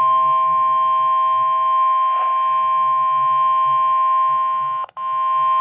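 NOAA Weather Radio warning alarm tone: one loud, steady, high tone from a weather radio's speaker, dropping out for a split second about five seconds in. It signals that a warning, here a tornado warning, is about to be broadcast.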